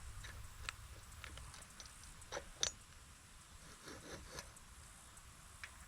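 Scattered light clicks and knocks from a walk-behind garden tiller being handled, with the engine off, over a low rumble. The sharpest knock comes about two and a half seconds in.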